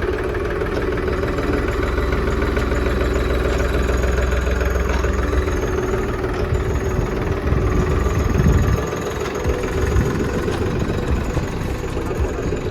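Tractor engine running steadily in a potato field while working a potato digger. Its low rumble turns uneven about halfway through.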